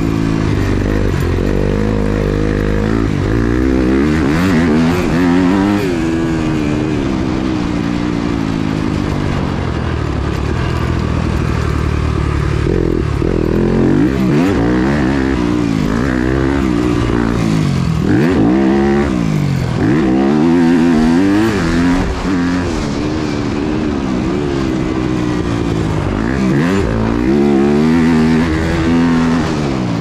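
Yamaha YZ250F single-cylinder four-stroke motocross engine heard from on the bike, revving hard and climbing in pitch through the gears, then falling as the throttle shuts, over and over, with a few short throttle-offs.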